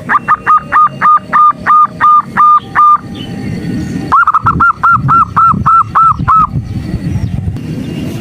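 Female zebra dove (perkutut) calling in two runs of quick, evenly spaced cooing notes, about four a second, with a pause of about a second between the runs. This is a lure call of the kind used to provoke male perkutut into singing. A low background noise sits under it.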